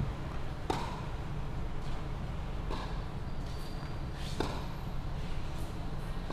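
Tennis racket strings striking the ball in a rally: a sharp pop of the serve about a second in, a fainter hit from the far end of the court midway, and a second sharp pop of a forehand a little after four seconds, with softer ball bounces between, over a steady low rumble.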